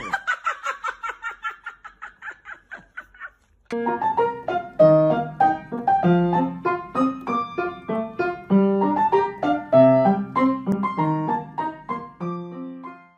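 Rapid, evenly spaced squeaky pulses from a pug, about six a second, fading out over about three seconds. After a short break comes piano music with a steady beat.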